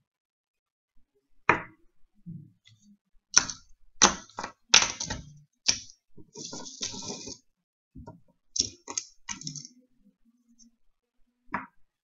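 Small discs clicking and knocking against each other and the table as they are gathered and stacked by hand: a string of sharp clacks, with a short rustling scrape about six seconds in and one last click near the end.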